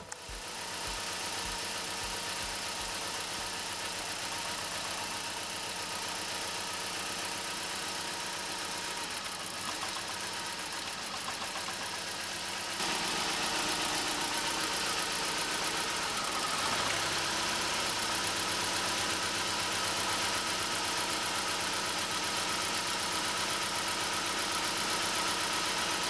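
Petrol Vauxhall Corsa C engine idling with a misfire while its fuel injector connectors are unplugged one at a time. Pulling cylinder 1's injector makes a clear difference to the running; pulling cylinder 3's makes none, marking cylinder 3 as the misfiring one. The engine sound steps up a little in level about halfway through.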